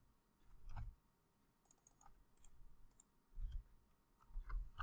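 Faint, scattered clicks of a computer mouse and keyboard, with a few soft low bumps.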